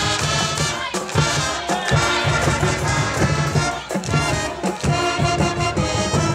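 High school marching band playing a stand tune: brass carrying the melody over a steady drum beat.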